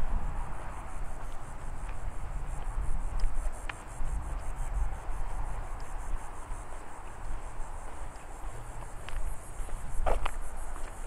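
Insects trilling, a high, rapidly pulsing buzz that grows louder near the end, over a low rumble of wind on the microphone. A few soft clicks are heard.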